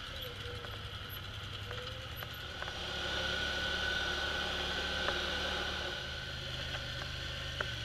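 Polaris Sportsman ATV engine running steadily while riding, louder for a few seconds in the middle, with a few sharp knocks.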